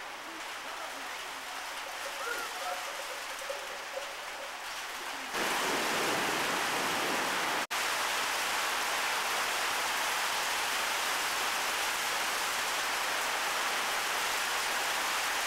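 Quiet outdoor sound with a few faint distant calls. About five seconds in, a sudden cut to a loud, steady hiss of rain, broken once by a momentary dropout.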